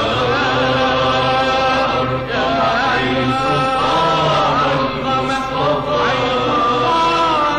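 A solo male munshid chanting an Egyptian Islamic devotional song (inshad) in long, wavering melismatic lines, with held lower tones beneath the voice.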